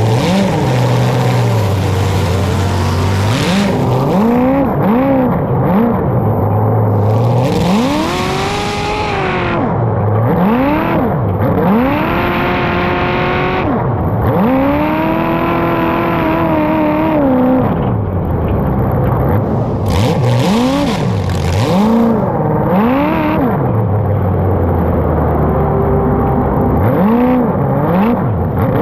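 Racing engines revving up and easing off again and again, several at once, over a steady low drone.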